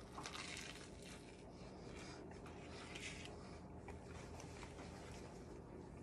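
Faint crunch of a person biting into a hot sandwich on a griddle-toasted bun, then quiet chewing with a few soft crunches.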